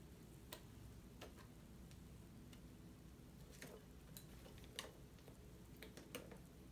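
Several faint, irregular clicks and ticks from hands handling and opening the packaging of a Blu-ray steelbook, over a low steady room hum.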